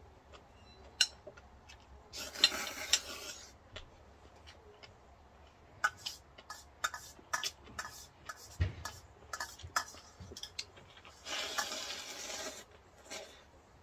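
Eating ramen: utensils clicking and scraping against the dish, a quick run of clicks through the middle, with two longer slurps of noodles and broth, one about two seconds in and one near the end.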